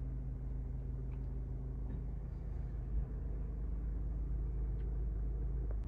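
Mazda CX-5 engine idling steadily just after being started, heard from inside the cabin as a low, even hum.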